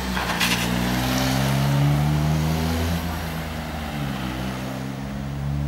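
A motor vehicle's engine running close by, a steady low drone whose pitch rises slightly and then dips about four seconds in.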